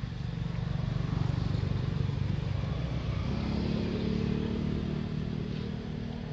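A motor vehicle engine running off-camera: a low rumble that swells over the first two seconds, then settles into a steady engine hum from about three seconds in.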